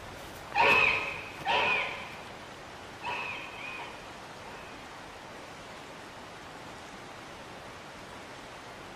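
A crow cawing three times over a steady hiss, the third call fainter than the first two.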